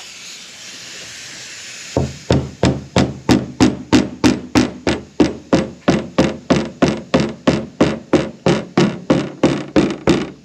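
A faint hiss, then a mallet rapping a dented steel pickup fender in a long run of quick, even strikes, about three a second. A basketball inflated behind the panel pushes the metal out while it is tapped: paintless dent straightening.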